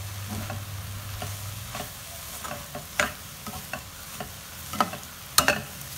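Spatula stirring grated coconut into a drumstick-leaf and egg stir-fry in a stainless steel kadai, the food sizzling softly. A few sharp clicks of the spatula against the pan stand out, the loudest about three seconds in and again near the end.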